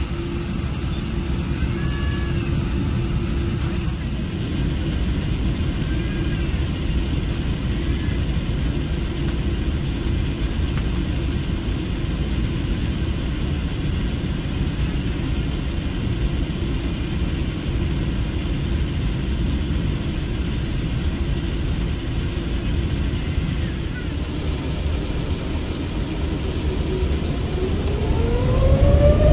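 Steady low rumble inside the cabin of a Boeing 787-9 as it taxis with its jet engines near idle. Near the end, a rising whine grows out of it and the noise gets louder as the engines spool up for the takeoff roll.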